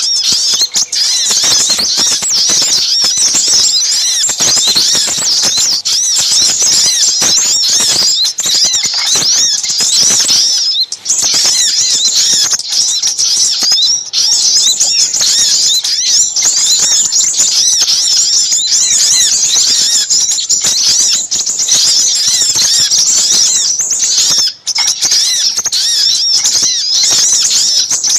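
Bird-lure recording of busy small-bird calls, sogok ontong (brown-throated sunbird) mixed with sepahraja: a dense, unbroken chatter of rapid high-pitched chirps and trills from several birds at once, with two short breaks, one near the middle and one near the end.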